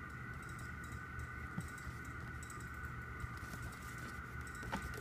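A steady background hum with a faint high whine at a fixed pitch, and a few light ticks of a glossy photo sheet being handled and bent by hand near the end.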